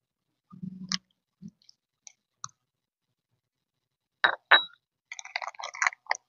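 Scattered clicks and crackles of someone eating with their hands: chewing and handling food, with two sharp clicks a little after four seconds and a run of crackling near the end.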